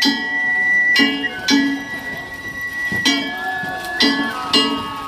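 Danjiri festival music: metal gongs and a drum struck in an irregular beat, each stroke ringing on, under a held high note that steps down in pitch twice.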